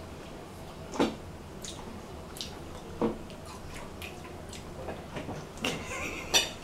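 Pomegranate seeds being pried out of the rind by hand and eaten: scattered soft ticks and squishes, with two sharper knocks about one and three seconds in and a short burst of crackling clicks near the end.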